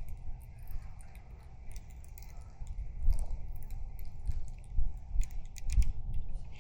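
Uneven low rumble on the microphone that swells several times, with faint scattered light clicks over it, typical of rod-and-reel handling.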